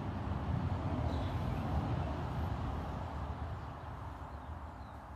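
Steady low rumbling background noise, easing off slightly toward the end.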